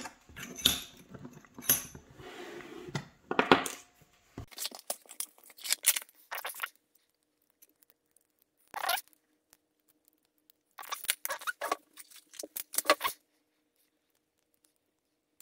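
Euro-profile lock cylinder being handled and taken apart: dense clicks, scrapes and rustling for the first few seconds, then scattered short bursts of small metal clicks and scrapes from the cylinder and a thin tool, with quiet gaps between.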